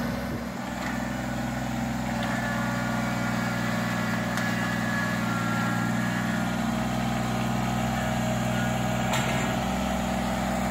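Kubota BX25D compact tractor's three-cylinder diesel engine running steadily at a constant speed.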